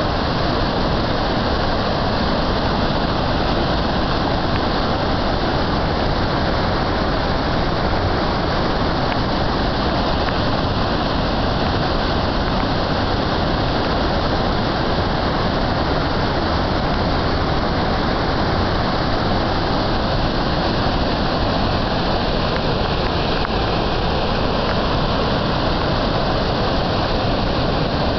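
Floodwater rushing steadily, an even unbroken wash of moving water.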